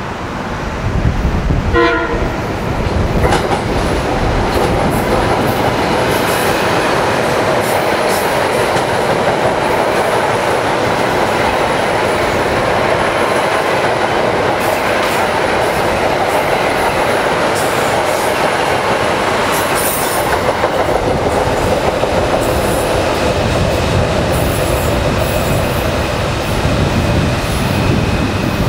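Metro-North M-series electric multiple-unit commuter train running through the station close by: a steady rumble of wheels on rail with scattered clicks over the joints. A short horn toot sounds about two seconds in.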